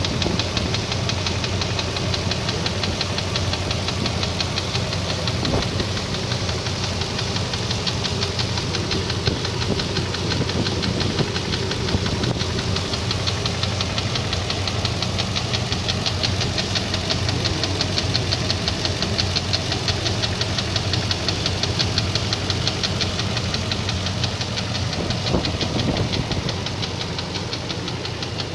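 Nissan VK56DE 5.6-litre V8 engine running steadily with a fast, even knocking.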